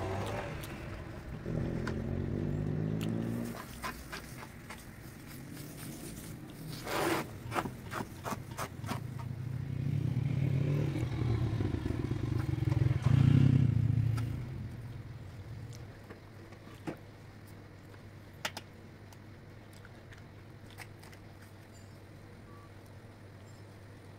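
A hand scrapes and taps on a large metal griddle while spreading batter, with a cluster of sharp clicks about seven to nine seconds in. Over it, a passing motor vehicle engine swells to a peak about thirteen seconds in and then fades. After that a steady low hum remains.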